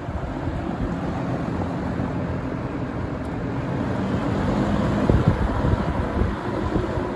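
Vintage 1971 Windsor (Lakewood P-21) box fan running steadily: a hollow, bassy rush of moving air with a low motor hum under it.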